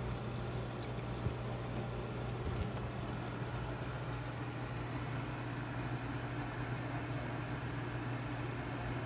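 Rain chamber running: a steady low pump hum under an even hiss of water falling into the tank.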